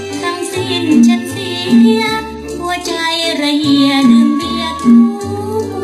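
Old Thai pop song recording: a woman singing with a strong vibrato over a small band, with a bass line repeating under her.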